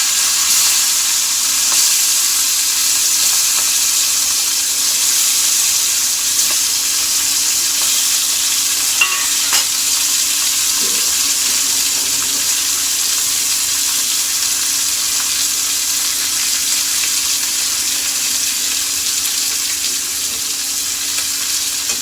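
Pieces of pomfret fish frying in hot oil in a pan: a steady sizzle, with a couple of light clicks about halfway through.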